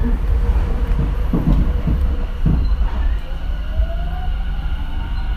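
Tobu 10080 series electric train car (MoHa 12480) pulling away: its IGBT VVVF inverter and traction motors give thin whining tones that rise in pitch as it accelerates, over a steady low running rumble with a couple of low thuds from the wheels.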